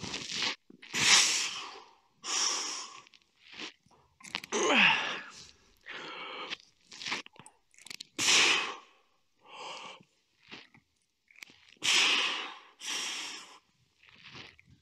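A man breathing hard while doing pull-ups: a string of sharp, forceful exhales at irregular intervals of roughly a second. About five seconds in, one exhale is voiced as a falling groan.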